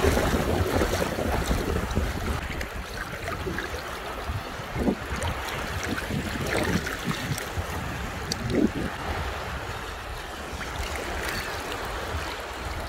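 Wind buffeting the phone's microphone over small waves lapping and sloshing in shallow lake water, with a swimmer's splashing loudest in the first second or so.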